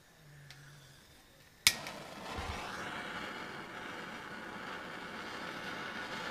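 Small handheld propane torch lighting with a sharp click about a second and a half in, then burning with a steady hiss.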